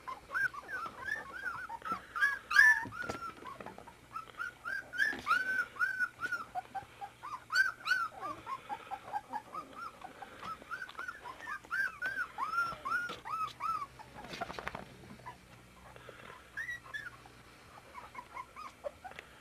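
A litter of 24-day-old puppies whimpering and squeaking: many short, high squeals in quick succession from several pups at once, thinning out over the last few seconds.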